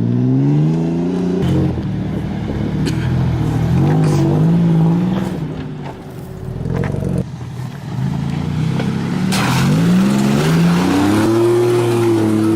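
Off-road 4x4's engine revving up and down under load while climbing a trail obstacle, with a dip about six seconds in and a long high rev near the end. Scattered knocks and scrapes from the tyres and underside on the ground.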